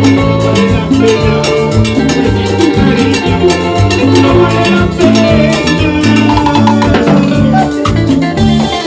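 A band playing salsa-style tropical dance music, with a bass line and drums keeping a steady beat.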